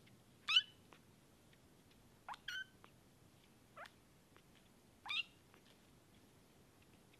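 Very young Bengal kitten mewing: five short, high-pitched mews, each sweeping up in pitch, the first the loudest and two coming close together in the middle.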